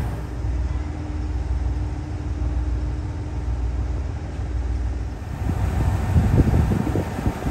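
ET122-1000 diesel railcar's engine idling: a low rumble with a steady hum. About five seconds in, uneven low gusts of wind on the microphone come in over it.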